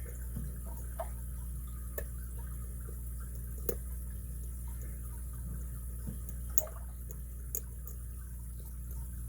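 Lock pick and tension wrench working in the keyway of a brass pin-tumbler padlock, giving a handful of small, sharp clicks a second or more apart over a steady low hum.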